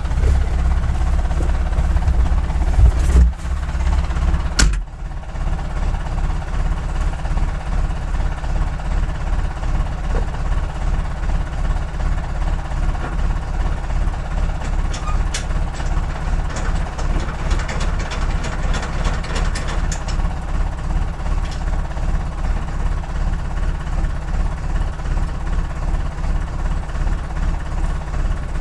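IHC 745 tractor's diesel engine idling, heard from inside the cab. There are two clunks about three and five seconds in, after which the engine runs quieter and even.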